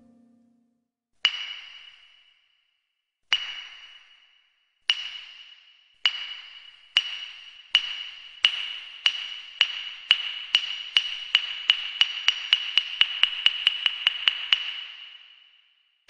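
Soundtrack music: a solo percussion passage of sharp wood-block-like strikes, each ringing briefly. The strikes start about two seconds apart and speed up into a rapid roll, which breaks off, and one more strike lands at the very end.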